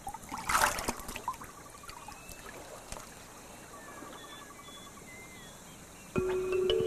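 Water splashing and trickling, with one louder splash about half a second in and faint chirping calls in the background. Music with held notes comes in near the end.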